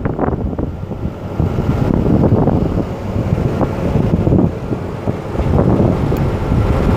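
Wind buffeting the microphone: a rough, uneven rumbling that swells and dips.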